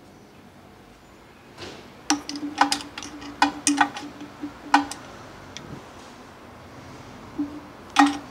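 Broken connecting-rod pieces clinking against metal inside the seized air compressor's opened crankcase. After a quiet start, a quick run of sharp metallic clicks lasts about three seconds, then two more come near the end.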